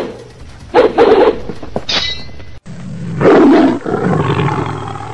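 A short bark-like burst about a second in; then, after an abrupt cut, a lion roars, loudest a little past the middle, and the roar trails off near the end.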